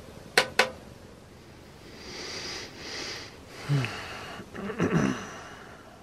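Dog in a dry coughing fit: wheezing, hissing breaths, then short hacking coughs that fall in pitch, twice. Two sharp clicks come just before. The owner takes these recurring morning coughs for a possible effect of the high elevation.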